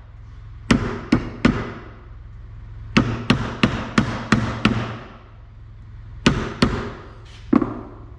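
Hammer blows driving a bearing into its seat, struck on the bearing's outer ring: about a dozen sharp metallic strikes in quick groups of three, six, two and one, each ringing briefly.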